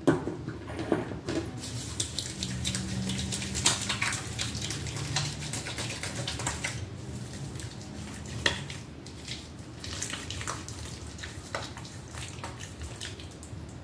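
Water running from a bathroom sink tap, with splashing and wet rubbing of hands as a face is washed with a lather.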